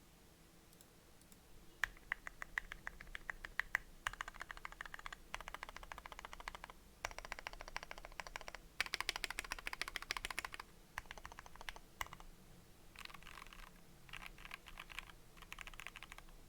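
Fast typing on a 60% custom mechanical keyboard with Gateron KS-3 Black linear switches on a polycarbonate plate in a Tofu60 case. The keys clack in quick bursts with short pauses, beginning about two seconds in.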